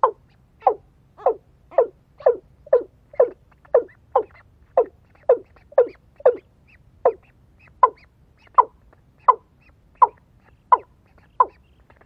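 Watercock calling: a long, steady series of short notes, about two a second, each dropping in pitch, the spacing widening a little toward the end.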